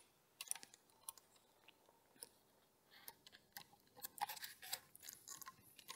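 Faint scattered clicks and ticks of small plastic and metal parts on an RC touring car's front end being handled while the servo saver screw is tightened, a few about half a second in and more from about four seconds in.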